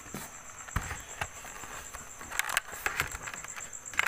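Knocks, clicks and cardboard rustling as portable DVD players are handled in a cardboard carton, with a low thump about a second in and sharper clicks later. Crickets chirp steadily behind.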